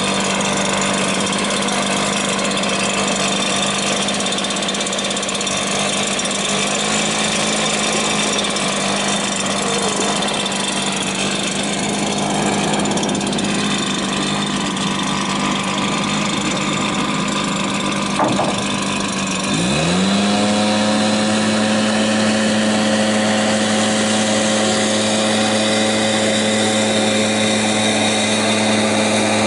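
A blower's small engine running steadily as it pushes the canoe; about two-thirds of the way through it is throttled up, its pitch climbing quickly and then holding higher and steady.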